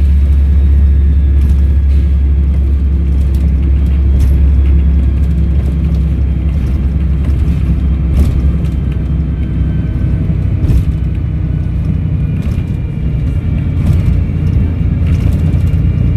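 Volvo B7RLE bus's diesel engine running, a steady low drone with a faint high turbo whistle above it.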